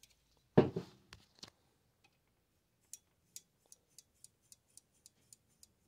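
A short burst of aerosol contact cleaner sprayed into a control potentiometer. A few seconds later comes a run of light, even ticks, about four a second.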